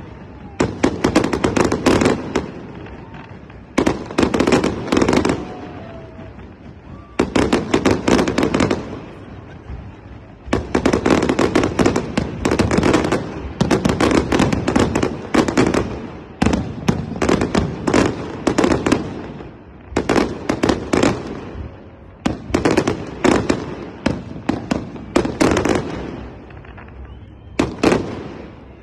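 Fireworks display: aerial shells bursting in rapid volleys of bangs and crackles, each volley lasting a second or three with short lulls between.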